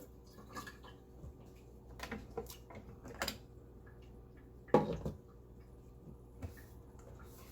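Kitchenware being handled: scattered light clicks and clinks of utensils and dishes, with one louder knock a little before five seconds in.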